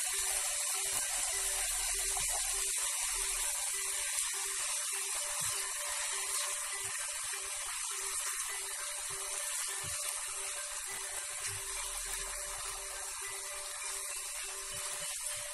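Diced chicken breast and onion sizzling in oil in a frying pan, a steady hiss.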